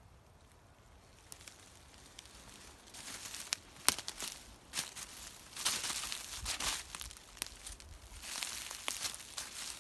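Footsteps crunching and crackling over dry forest-floor litter, uneven and irregular, starting about three seconds in after a quiet start.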